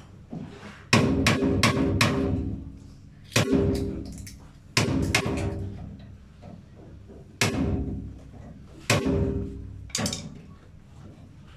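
Irregular sharp knocks on metal, a dozen or so in twos and threes, each leaving a brief ringing tone.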